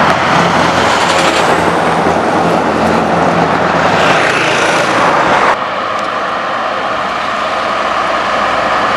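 Scania R-series truck's V8 engine running through a loud exhaust pipe as the truck passes and pulls away. A little past halfway it cuts abruptly to another truck's engine, steadier and slightly quieter, as that truck approaches.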